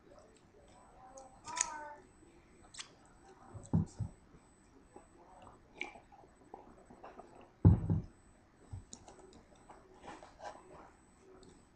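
Close-up chewing and mouth noises of someone eating, with scattered small clicks, two loud low thumps about four and eight seconds in, and a short pitched sound near the start.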